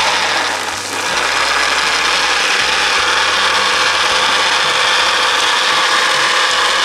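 Shredded dried beef with onion and tomato sizzling steadily in a frying pan, stirred and scraped around with a spatula.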